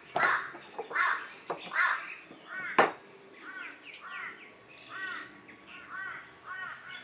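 Birds calling: a few harsh calls in the first two seconds, then a run of short, arching notes in quick pairs and threes. A single sharp click about three seconds in.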